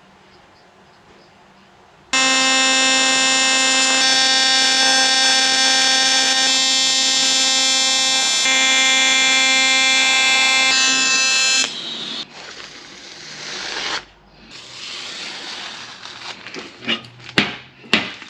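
AC TIG welding arc on the aluminium radiator tank, a loud steady buzz that starts about two seconds in and cuts off after about ten seconds. Softer scraping and a few sharp clicks follow near the end.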